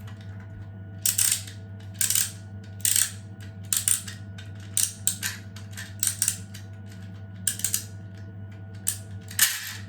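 3D-printed plastic wind-up spring mechanism being wound by hand, its ratchet clacking in short clusters about once a second.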